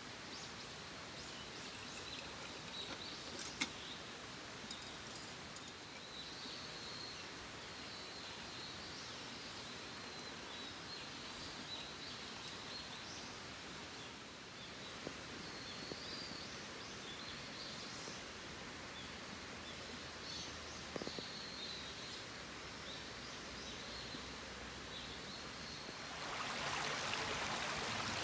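Small birds chirping again and again over a steady outdoor hiss, with a few light clicks. Near the end a louder, even rushing hiss comes in.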